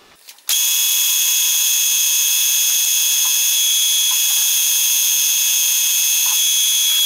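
Colchester Student metal lathe running at speed while turning an aluminium bar, with a loud, steady, high-pitched whine. It starts abruptly about half a second in.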